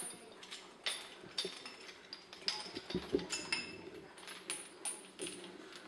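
Irregular light metal clinks and knocks as the exposed end links of a sleeved motorcycle security chain are handled against the steel hoop of a floor-mounted ground anchor.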